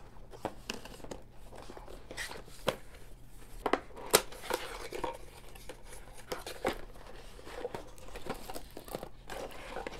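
Cardboard packaging being handled: inner boxes pressed and shifted and a box flap pulled open, giving irregular rustles, scrapes and sharp clicks, the sharpest about four seconds in.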